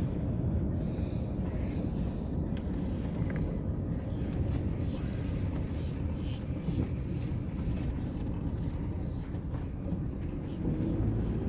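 Truck driving: a steady low engine and road rumble, with a rising engine note near the end as it picks up speed.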